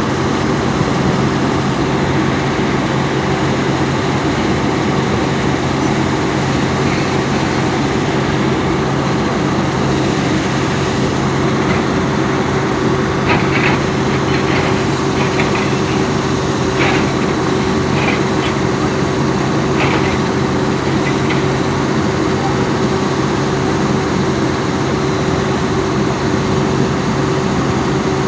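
Volvo EC210B crawler excavator's diesel engine running steadily with a constant low hum as the machine works, with a few short sharp clinks and scrapes in the middle, typical of the bucket working the soil.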